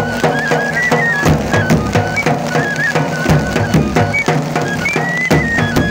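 Himachali Nati folk dance music: a high melody stepping between a few notes over a steady drumbeat.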